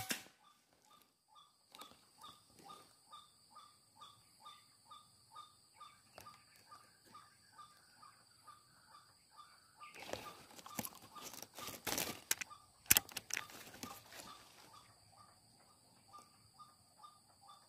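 Tropical forest ambience: a steady high insect drone with a regular chirp about two or three times a second. From about ten seconds in come several seconds of rustling in the undergrowth with a few sharp cracks, the loudest near thirteen seconds.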